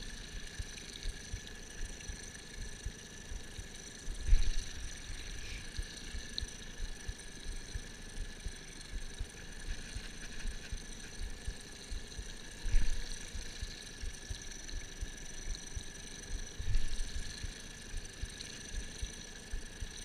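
Wind buffeting the microphone in gusts, with a few louder thumps, over a faint steady high whine.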